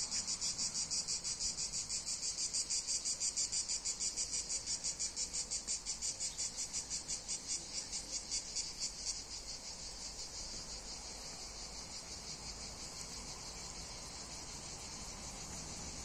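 Insect in the trees singing, a high rapid pulsing buzz of about five pulses a second that turns to a steadier, slightly fainter buzz about nine seconds in.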